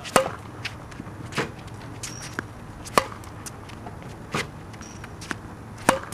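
Tennis racket striking balls fed by a ball machine: three sharp hits about three seconds apart, each with a short ringing note. Fainter knocks fall between them.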